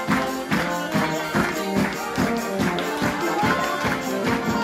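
Lively folk-style wedding dance music from a live band, with a quick steady beat.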